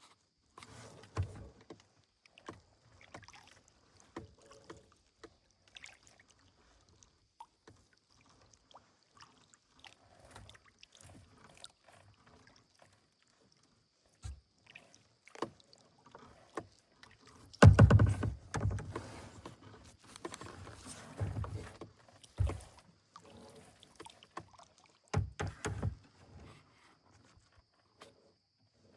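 Kayak being paddled: irregular paddle splashes and drips with scattered knocks, loudest in a cluster a little past halfway.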